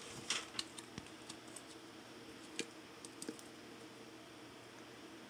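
Faint, scattered small clicks and taps of an iMac G3's plastic speaker housing and a small replacement speaker being handled and fitted together by hand. The clicks bunch near the start, come a few more times over the next three seconds, then stop.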